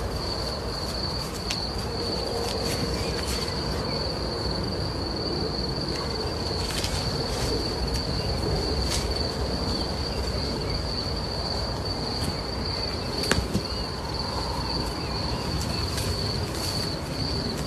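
A steady high-pitched insect trill with a low rumbling background and a few faint clicks.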